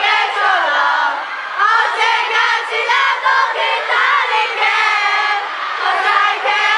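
A crowd of fans screaming and calling out, many high voices overlapping without a break.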